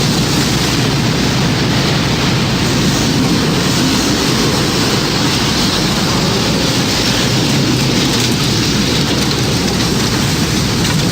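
Loud, steady roar of storm wind and heavy rain, unbroken and without distinct impacts.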